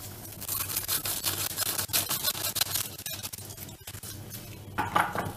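Small paper sachet of vanilla sugar crinkling and being shaken out into a metal mesh sieve, a fast scratchy rustle for the first few seconds, then a short louder rustle near the end.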